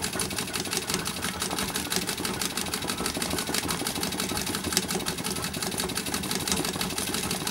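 Vintage treadle sewing machine running steadily in straight stitch, a rapid, even clatter of the needle mechanism as it stitches through hooped fabric.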